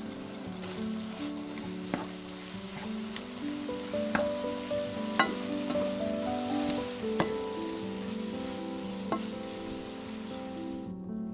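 Ground beef and onions sizzling in a stainless steel frying pan while a wooden spatula stirs them, with a handful of sharp knocks of the spatula against the pan.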